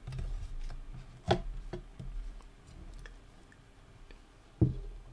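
Metal mesh front grill of a Soundcore Motion 300 speaker being lifted off its clip-in fastenings and handled. There are two sharp clicks, one about a second in and a louder one near the end, with a few small ticks between.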